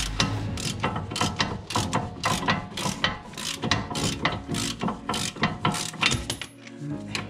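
Socket ratchet clicking in short repeated runs, a few strokes a second, as a brake caliper bracket bolt is wound out.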